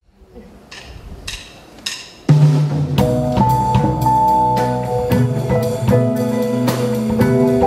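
A small jazz band starting a song: three light, evenly spaced taps, then about two seconds in the band comes in with a bass line and chords, a drum kit with snare and bass drum joins a moment later, and a held melody line plays above.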